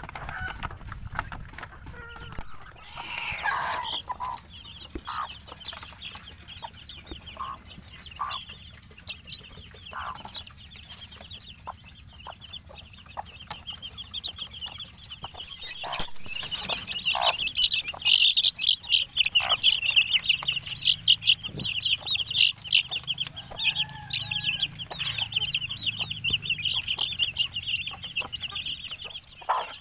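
Native hen and her chicks feeding. There are sharp pecking taps and scattered short calls at first. About halfway through, a dense, continuous chorus of rapid high-pitched chick peeps sets in, with the hen's low clucks underneath.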